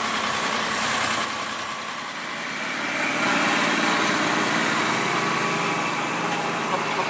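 Tow truck engine running as it slowly pulls a wrecked bus past, getting louder about three seconds in as the vehicles come close.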